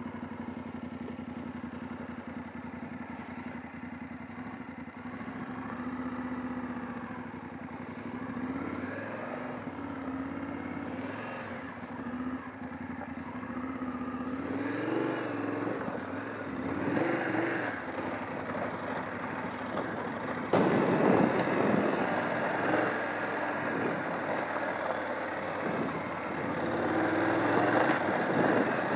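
BMW F 850 GS Adventure's parallel-twin engine running steadily at first, then rising and falling in pitch as the bike is ridden on and off the throttle. A louder rushing noise comes in suddenly about two-thirds through and stays.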